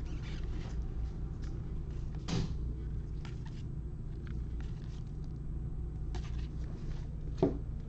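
Trading cards and pack wrappers being handled: faint rustles and light taps over a steady low hum, with a soft knock about two and a half seconds in and a louder knock near the end.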